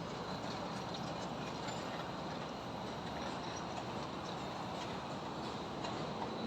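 Steady hum of highway traffic and a high-rise construction site, with scattered faint clicks and taps.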